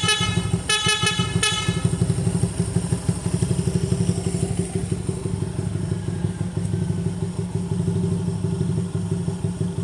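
Motorcycle horn beeping twice in quick succession about a second in, over a Honda C92 motorcycle's engine idling in neutral with a steady, rapid pulsing beat.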